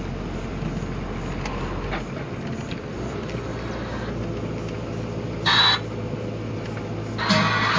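Steady low rumble of a vehicle running, with a short burst of noise about five and a half seconds in; music starts just before the end.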